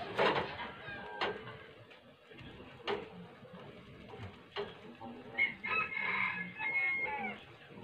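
A rooster crows once, about five and a half seconds in, for roughly two seconds. Before it come a few sharp knocks of a wooden stirring stick against a tin can.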